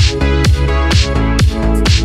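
Electronic dance music: a steady kick drum about twice a second under sustained synth chords.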